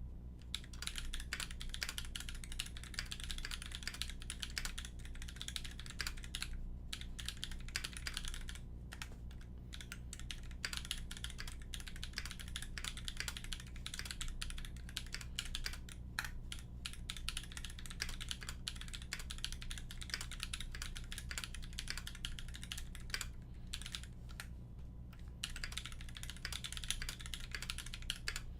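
Continuous typing on a Canoe mechanical keyboard with tactile Holy Panda switches on an aluminium plate and GMK keycaps: a dense run of quick keystroke clacks, broken by a few brief pauses.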